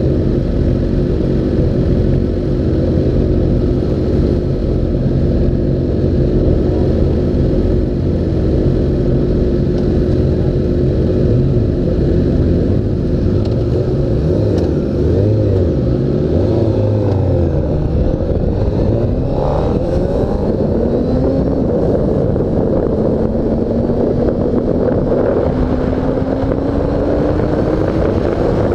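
Suzuki GSX-R 600 inline-four engine idling steadily, then revving as the bike pulls away about halfway through. It accelerates up through the gears, its pitch climbing and dropping at each shift, then climbing long and slow near the end.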